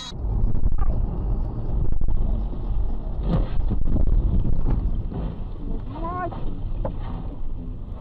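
Dashcam sound of a car driving on a wet road in the rain: steady engine and road rumble with tyre hiss and wind on the microphone. About six seconds in, a brief pitched sound rises and falls.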